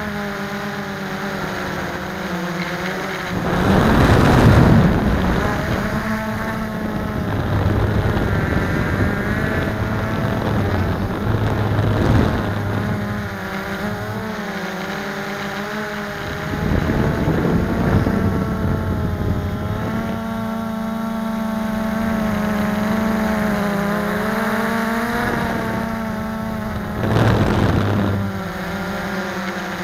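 Blade 350QX quadcopter's four brushless motors and propellers whining, heard from the drone's own onboard camera, the pitch shifting up and down as the motors speed up and slow down to steer. Gusts of wind noise swell over it three times.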